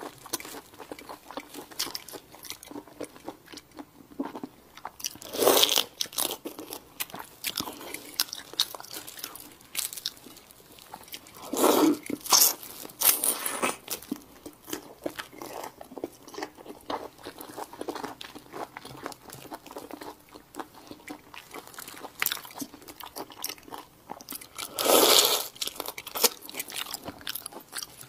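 Close-miked eating sounds: raw shrimp in chili sauce being handled, bitten and chewed, a steady run of small wet clicks and crackles. Three louder, longer mouth sounds stand out, about five seconds in, about twelve seconds in and near the end.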